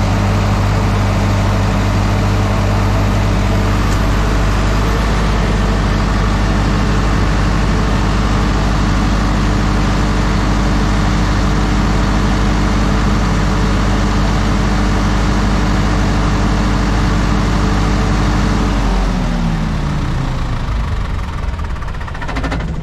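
Diesel generator set running steadily under load, then shut down about 19 seconds in, its engine note falling in pitch as it runs down.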